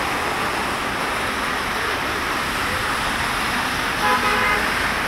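Steady hiss of rain and car tyres on a flooded road as traffic passes. A car horn sounds briefly about four seconds in.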